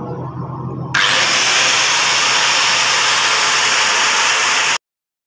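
Electric grinder running: a motor hum, then about a second in a much louder, harsh, steady noise. The noise cuts off abruptly near the end.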